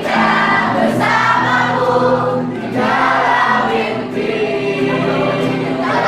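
A group of young voices singing a song together like a choir, in phrases that break about every second and a half.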